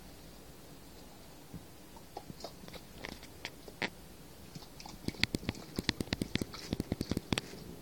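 Close, irregular clicking and crackling: a few scattered clicks, then a quick run of them from about five seconds in.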